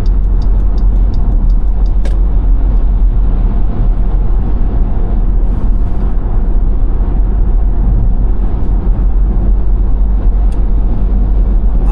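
Steady road and engine noise of a car driving at freeway speed, a loud even rumble heaviest in the low end, with a single click about two seconds in.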